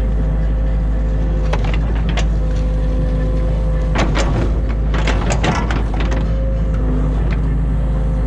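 New Holland Kobelco E50.2 mini excavator's diesel engine running steadily with a steady whine, while the bucket works through mud and debris in the ditch. Sharp knocks and scrapes come now and then, clustered about four to six seconds in.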